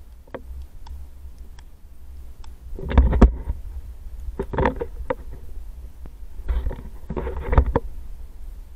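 Inline skate wheels rolling on pavement under a steady low wind rumble on the microphone, with a few louder bursts of noise, the loudest about three seconds in.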